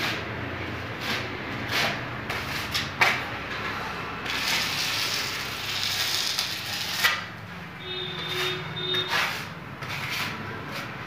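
Steel scraper blade spreading thick, rough texture plaster along a wall edge: a run of scraping strokes, with a few sharp clicks of the blade, the loudest about three seconds in.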